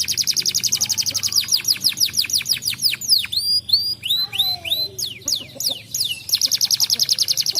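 Domestic canary singing: a fast trill of rapidly repeated falling whistles, about a dozen a second, then a few slower sweeping notes, then another fast trill near the end.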